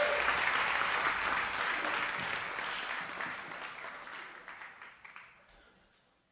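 Applause, many quick hand claps, fading out steadily over about five seconds.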